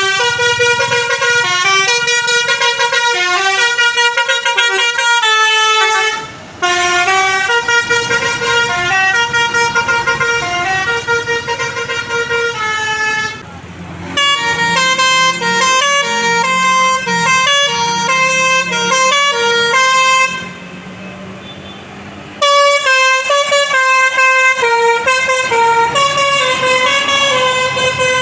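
Bus 'basuri' musical horn playing quick stepped melodies, note after note, in four runs with short breaks between them and a longer break about two-thirds of the way through.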